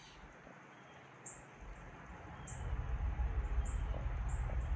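Small bird chirping in short, high, repeated notes, over a low rumble that builds about two seconds in.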